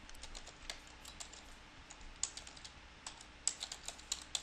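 Typing on a computer keyboard: faint, irregular keystrokes that come quicker near the end.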